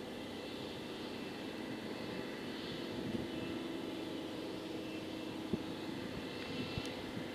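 Steady distant engine drone holding a few even tones, with a few faint knocks.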